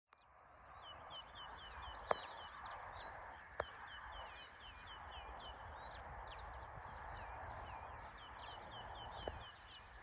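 Birds chirping over a steady outdoor hiss, their short chirps repeating many times in quick runs. The sound fades in over the first second, and there are sharp clicks about two seconds in, three and a half seconds in, and near the end.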